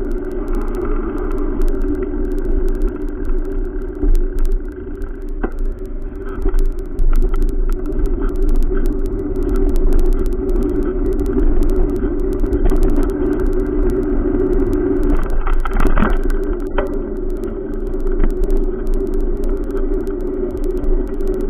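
Steady rumble and rattle from a bicycle-mounted camera rolling along a concrete sidewalk beside a busy road, mixed with passing traffic and many small clicks. There is a brief louder burst of noise about three quarters of the way through.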